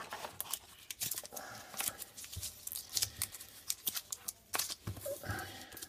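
Trading cards being handled and gathered up: irregular light clicks and rustles.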